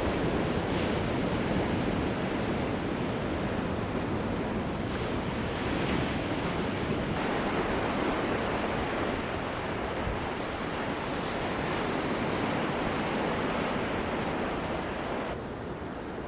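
Sea waves surging and washing on the shore, a continuous rush of surf. Its hiss turns brighter about seven seconds in and duller near the end.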